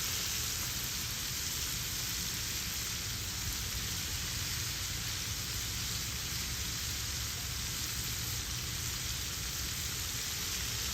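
Battered bangamary fish deep-frying fully covered in hot oil in a pot: a steady, even sizzle.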